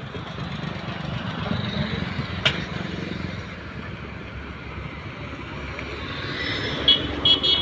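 Steady engine and road rumble of traffic, heard while riding along a busy street. A sharp click comes about two and a half seconds in, and two short, high-pitched beeps come near the end, the loudest sounds here.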